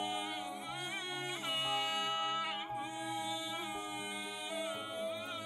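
Music: a backing track with steady bass notes and a wordless sung vocal melody gliding over it.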